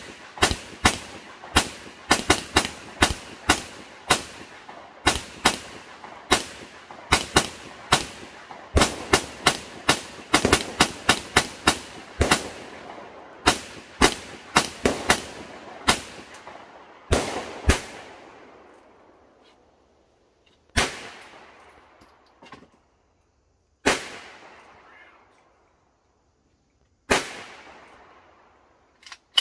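Kel-Tec Sub-2000 Gen 2 semi-automatic pistol-calibre carbine firing a long, quick string of shots, about two to three a second, as the 50-round drum is run down, each shot ringing out across the range. After about 18 seconds the firing breaks up into a few single shots roughly three seconds apart.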